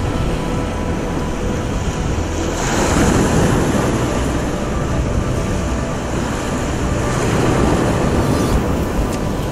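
Surf breaking on a beach mixed with wind buffeting the microphone: a steady rushing noise that swells about three seconds in.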